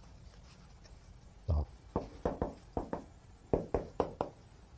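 Chalk tapping on a blackboard as characters are written: about ten short, sharp taps in quick, uneven strokes, starting about a second and a half in.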